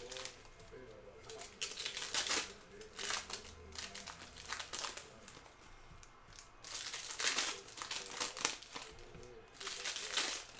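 Plastic trading-card pack wrappers crinkling and tearing in irregular bursts as retail packs are ripped open and handled.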